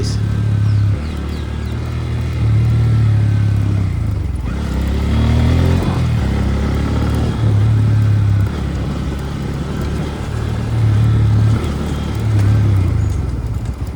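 Bajaj motorcycle being ridden on the road, its engine running under a steady low rumble of wind and road noise that rises and falls every few seconds. Noises come from the rear wheel and the front end, which the rider puts down to the bike being overdue for a service, its chain set badly worn and dirty.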